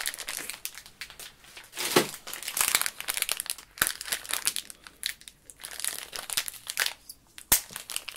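Small individual sweet packet being crinkled open by hand, in irregular bursts of rustling with a few sharp clicks.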